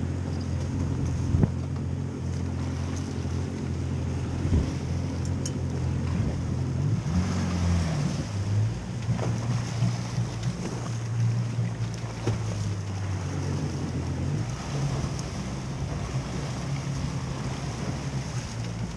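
Boat engine running underway, with water rushing along the hull and wind on the microphone. The engine note rises briefly about seven seconds in, then settles, and there are a couple of light knocks early on the deck.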